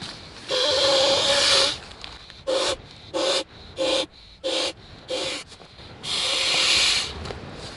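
A person blowing by mouth into the inflation valve of the pillow chamber of a Hitorhike inflatable sleeping pad. It goes as one long blow, then five short quick puffs, then another long blow near the end, each with a steady low note.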